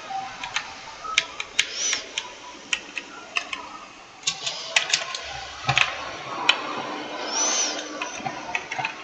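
Computer keyboard being typed on: irregular key clicks, a few a second.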